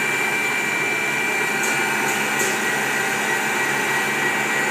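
Electric mixer running steadily at speed with a constant whine, churning ice cream base as liquid nitrogen freezes it to a whipped-cream texture.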